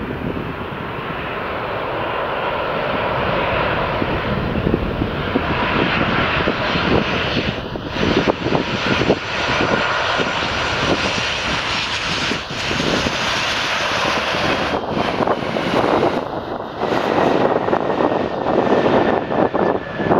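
Boeing 737-800's CFM56-7B jet engines on final approach and landing. The noise builds over the first several seconds as the aircraft comes close and stays loud, and a faint falling whine runs through the last few seconds as it rolls out on the runway.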